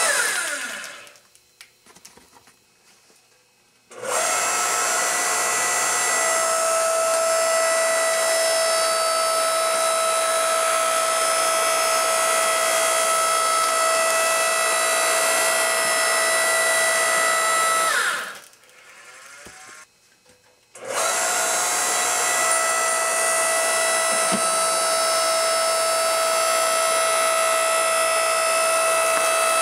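An electric power-tool motor running with a steady whine. It is switched off twice, winding down with a falling whine right at the start and again about eighteen seconds in, and each time it starts again abruptly at full speed a few seconds later.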